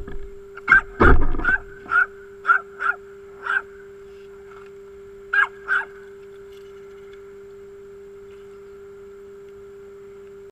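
A small dog barking in short, sharp yaps, about ten of them over the first six seconds, then stopping. A faint steady hum runs underneath.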